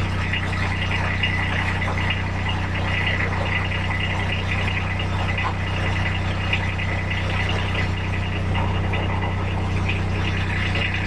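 A steady machine hum with a continuous crackling hiss over it, unchanging throughout.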